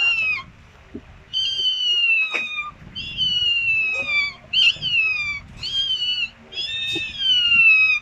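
Recorded kitten meowing played as an animal sound effect: about seven high, slightly falling meows in quick succession.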